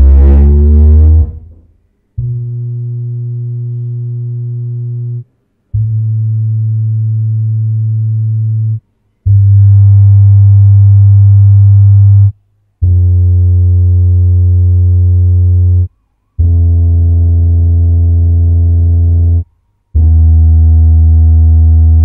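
JBL LSR310S 10-inch powered studio subwoofer playing low-frequency test tones. A rising sweep ends about a second in, then comes a series of steady tones of about three seconds each with short gaps between them, stepping from 100 Hz down toward 80 Hz.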